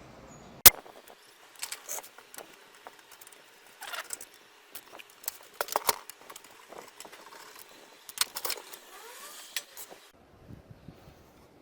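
Irregular clicks, taps and light metallic rattling from small parts being handled, opening with one loud sharp click about a second in.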